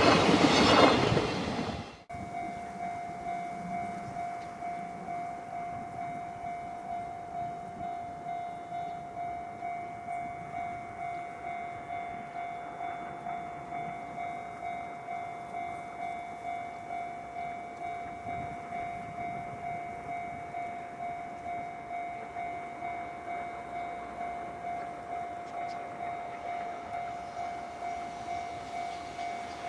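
A freight train passing loudly for the first two seconds, cut off abruptly. Then a level-crossing alarm ringing: one high electronic ding repeated in a quick, even rhythm.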